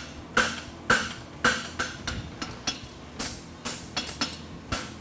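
Farrier's hammer striking a hot steel horseshoe on the anvil and its horn, about two hard blows a second with lighter taps between, each with a short metallic ring.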